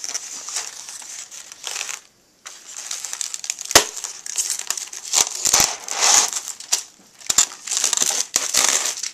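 Clear plastic shrink-wrap crinkling and crackling as hands grip and pick at the film sealed over a polystyrene tray, with a sharp click about four seconds in.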